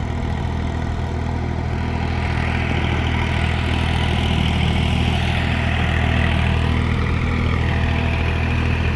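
Farm tractor engine running steadily, a low, even engine drone.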